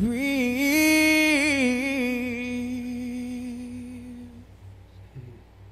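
A single voice sings one long held note that wavers slightly in pitch and fades away about four and a half seconds in.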